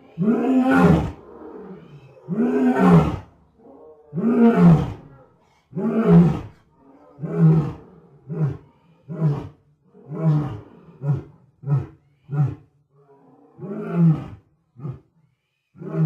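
Lion roaring in a full bout: about four long, deep roars, followed by a run of shorter, quicker roars at roughly one a second.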